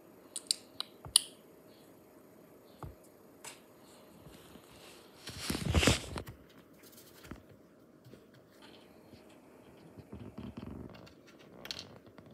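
Kitten scrabbling about in a cardboard box lined with paper: a few sharp taps and clicks about a second in, a louder rustle of paper and cardboard around the middle, then lighter scratching and ticks.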